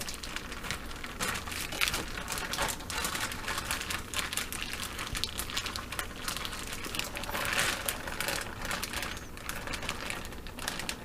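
Thin plastic cooking bag crinkling and rustling in irregular crackles as hands work a whole raw chicken out of it.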